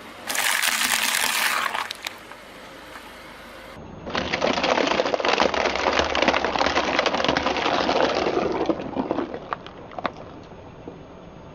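Crunchy objects being crushed under a car tyre: dense crackling and snapping for about five seconds, with a few last sharp cracks near the end. A shorter burst of crushing comes in the first two seconds.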